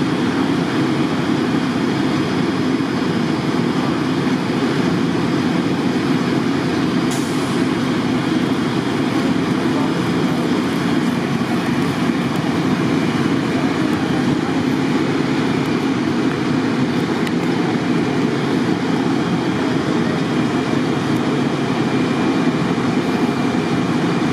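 Steady, unchanging low rumble of idling heavy vehicles and machinery.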